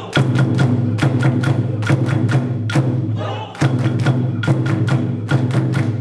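Bon-odori dance music with taiko drum strikes at about four to five a second over a steady low bass note, breaking off briefly a little past halfway before the beat resumes.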